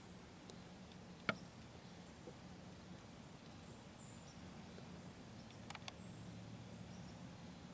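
Faint outdoor quiet with a low steady hum, broken by one sharp click about a second in and a couple of quick ticks near the end.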